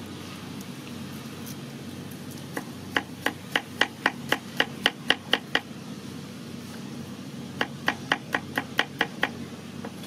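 Cleaver slicing garlic cloves on a wooden chopping board: quick, even knocks of the blade on the wood, about four a second, in two runs, about a dozen strokes from a couple of seconds in, then about seven more near the end.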